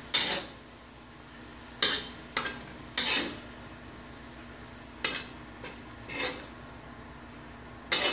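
Metal spatula scraping and clinking against a steel wok as fried tempeh strips are scooped out onto a plate, about six sharp scrapes in all, over a faint steady sizzle of the hot oil left in the wok.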